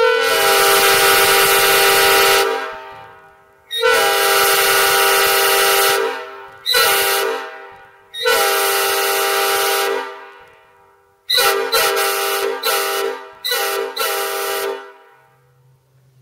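Nathan AirChime P5 five-chime train horn blown on compressed air: several long blasts of about two to three seconds with one short blast between, then a quick run of short toots near the end. The chord is slightly out of tune because the horn is fed through an undersized 3/8-inch hose. The recording is distorted because the camera microphone is overloaded.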